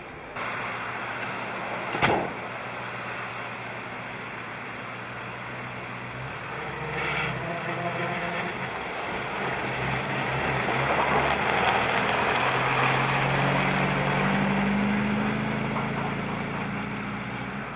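A van's sliding side door slams shut once about two seconds in. Then the ambulance van's engine runs and grows louder, its pitch rising as it pulls away.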